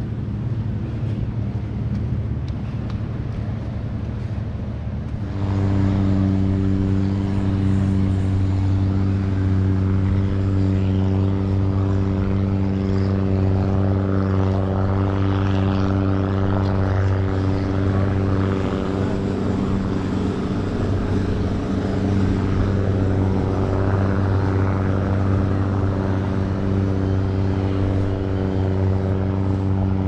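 An engine running at a steady speed, a low even hum with a clear pitch, which comes in suddenly about five seconds in. Before that there is a low wind rumble.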